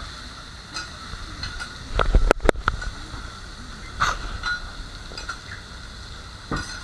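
Okonomiyaki frying on a hot teppan griddle with a steady sizzling hiss, broken by sharp metal clicks and knocks of cooking utensils, loudest in a quick cluster about two seconds in.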